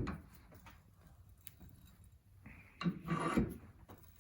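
A sharp metal knock, then about three seconds later a louder scraping, clattering burst ending in a low thud, as the welded 16-gauge mild-steel tube is handled and set up for a crush test.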